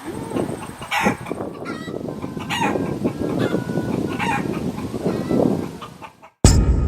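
A flock of chickens clucking and calling over one another. Near the end the sound cuts out for a moment and music starts with a single struck note that rings on.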